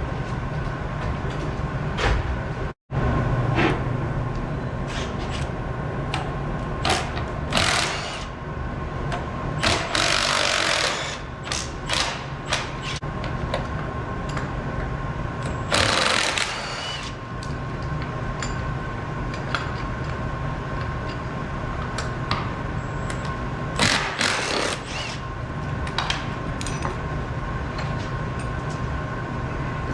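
Hand tools clicking, clinking and scraping on metal parts during brake work on an ATC 70 three-wheeler, over a steady hum.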